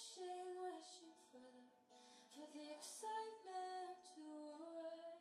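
Background music: a woman singing a slow melodic song.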